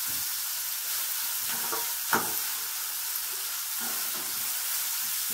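Shredded cabbage and carrot sizzling as they are stir-fried in a non-stick wok, a metal spatula scraping and tossing them in strokes every second or so, with one sharper clack of the spatula on the pan about two seconds in.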